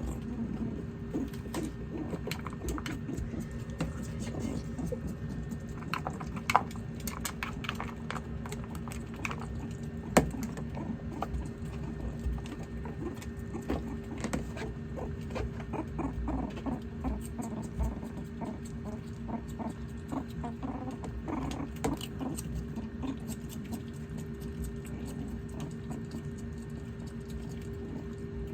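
Pet meerkats eating carrots and vegetables: a busy run of small crunches, clicks and scrabbling, with two sharper clicks about six and ten seconds in.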